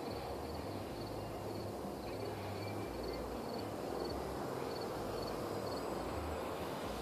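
Steady outdoor background noise, a low rushing hum, with faint high-pitched insect chirping pulsing on and off.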